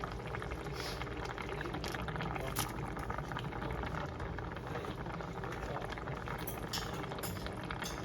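A pot of tofu-and-tuna jjageuli stew boiling: a steady bubbling with scattered small pops.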